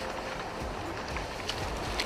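Brown bears wading through shallow seawater: steady wind and water noise with a few sharp splashes from their steps.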